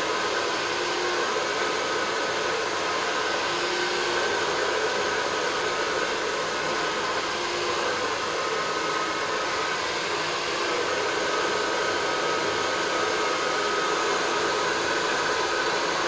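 Handheld hair dryer blowing steadily while drying wet hair: an even rush of air with a faint steady motor whine.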